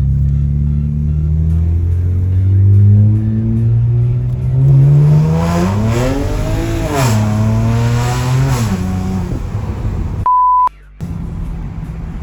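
Tuned car engine, remapped with hybrid turbos, accelerating hard: its pitch climbs for about six seconds, drops sharply twice as it shifts up, then fades away. Near the end a short censor bleep cuts out all other sound.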